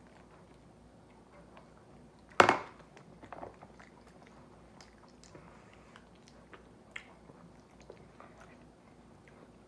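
A person eating soft bread: quiet chewing with small mouth clicks. About two and a half seconds in there is one loud sudden knock, with a smaller one a second later.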